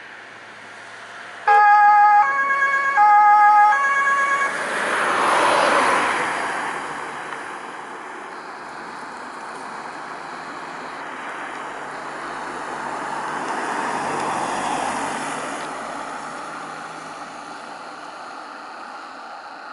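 Fire brigade crew van's two-tone siren (Martinshorn) sounding briefly, four loud notes alternating low and high and then cutting off, followed by the rush of the van's engine and tyres passing by and fading away. A second, fainter swell of road noise rises and falls later.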